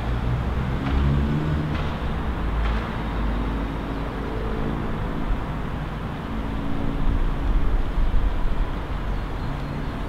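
City traffic from the streets below: a steady low rumble of road vehicles with engines of passing cars rising and fading, louder about a second in and again around seven to eight seconds in.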